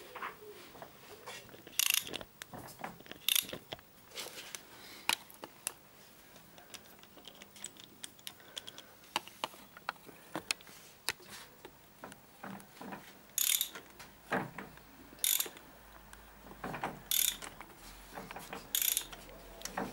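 Socket ratchet clicking in irregular short bursts as it turns a Honda NTV 650 V-twin's crankshaft over by hand. The crank is being rotated to bring the FT timing mark to the notch with the cylinder on its compression stroke, for setting valve clearances.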